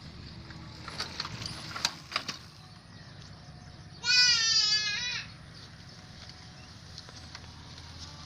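A single loud animal call about four seconds in, lasting about a second, its pitch wavering throughout. A few sharp clicks come a little earlier.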